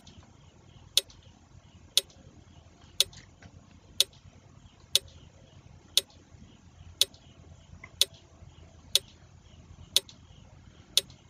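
Quiz countdown-timer sound effect: a sharp, even tick once every second.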